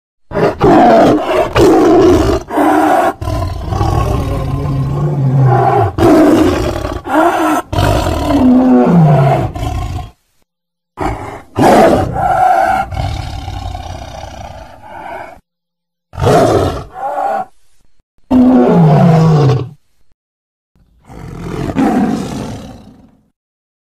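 A series of tiger roars, edited together with sudden cuts and brief silent gaps. Two of the roars fall steadily in pitch at the end.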